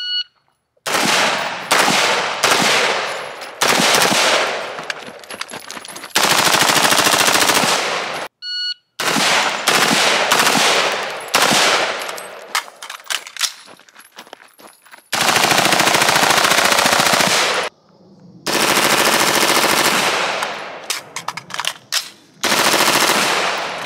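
Taiwanese T65 rifle upper on a select-fire AR-15 lower firing full-auto in 5.56 mm: a run of bursts, some short and several long strings of rapid fire lasting two to three seconds.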